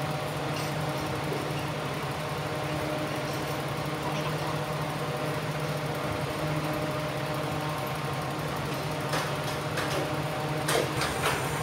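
Steady mechanical hum of running machinery, with a few light clicks and taps near the end.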